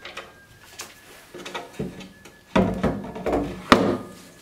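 Clicks, rattles and knocks of a 12 V sealed lead-acid battery being handled, its spade connector pushed on, and then set down into a sheet-metal battery tray. A run of heavier knocks comes in the second half, and one sharp knock near the end is the loudest.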